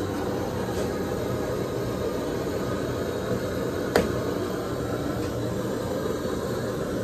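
Steady running noise of an air conditioner in a small room, with one sharp click about four seconds in.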